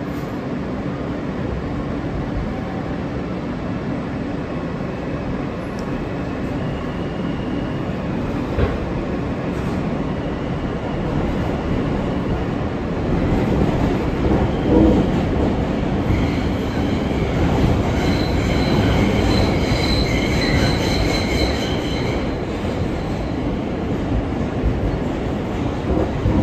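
A New York City subway R local train car running through the tunnel, heard from inside the car: a steady rumble of wheels on rails. For several seconds around the middle, a high-pitched metallic wheel squeal rises over the rumble, then fades.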